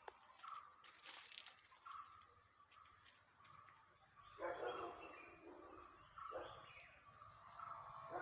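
Faint outdoor sound with three short animal calls, each about two seconds apart, over a steady high-pitched tone.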